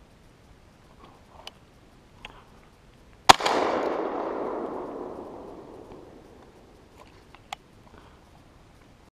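A single shotgun shot at a flying dove about three seconds in. Its report rolls away in an echo that fades over about three seconds. A few faint clicks and knocks come before and after it.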